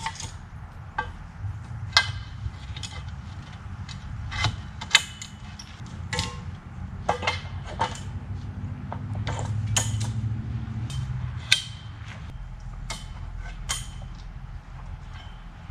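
Parts of a portable hammock stand being handled and fitted together: a long run of sharp, irregular clanks and clicks with some creaking. A low rumble swells and fades in the middle.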